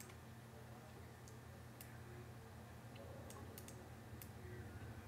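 Computer mouse clicks, about seven sharp irregular clicks, several close together a little past halfway, over a faint steady low hum.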